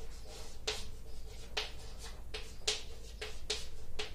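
Chalk writing on a blackboard: about eight short, sharp taps and scrapes at an irregular pace.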